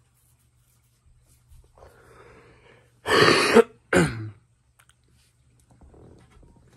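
A young man, sick with COVID, coughing twice in quick succession about three seconds in. The second cough is shorter and trails off lower in pitch.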